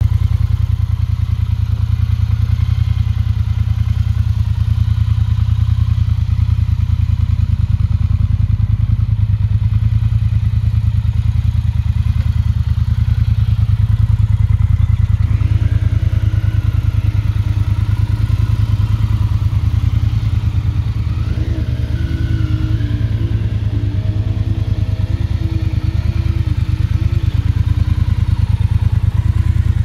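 2019 Triumph Bonneville Speedmaster's 1200 cc parallel-twin engine idling steadily through its chrome exhausts.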